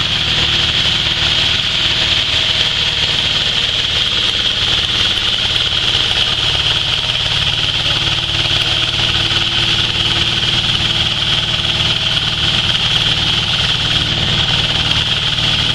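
Stainless-steel hammer mill for grinding grain running steadily, with a low pulsing hum from its drive and a high, even whir that does not change.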